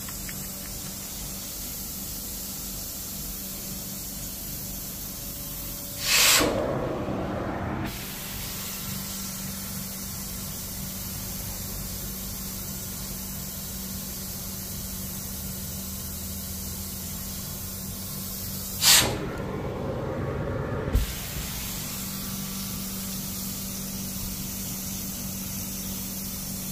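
A steady hiss, with two louder rushes of spray, each lasting about two seconds. The first comes about six seconds in and the second about nineteen seconds in, each starting abruptly.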